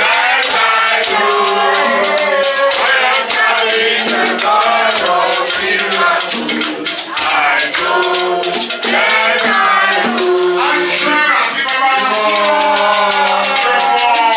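Group singing accompanied by a shaker rattle keeping a steady, quick beat throughout.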